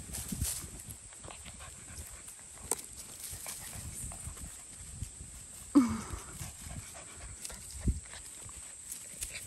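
Standard poodle puppies scuffling about on grass and dry leaves, with light rustling and footsteps throughout. About six seconds in comes a single short yelp that falls in pitch, the loudest sound, and a dull thump follows near eight seconds.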